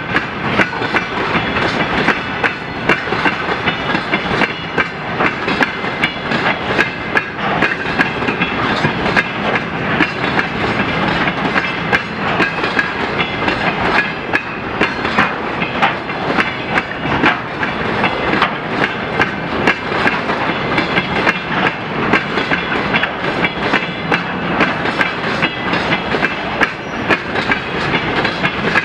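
Freight train of tank cars rolling past at steady speed, wheels clacking continuously over rail joints with a faint ringing squeal from the wheels and rails.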